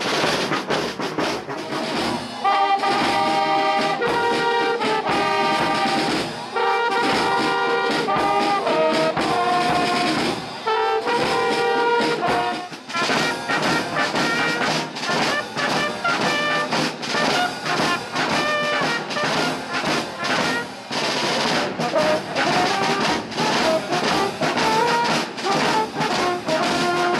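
Marching drum-and-brass band playing: snare and bass drums beat the march, and a section of circular brass horns and bugles plays the tune, coming in after a couple of seconds of drums alone.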